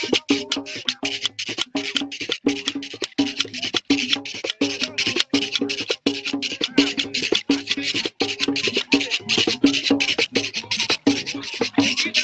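Son de negros folk music: drums and clacking wooden percussion in a fast, even beat of about four strokes a second.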